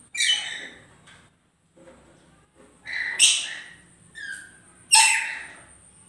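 Red lories screeching: four loud, harsh calls, one at the start and three more between about three and five seconds in.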